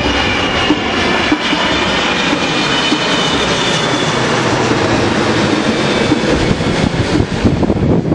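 Jet engines of an ANA Boeing 777 on landing approach with gear down, passing low overhead: a loud steady roar with a high fan whine that fades about halfway through as the plane moves away.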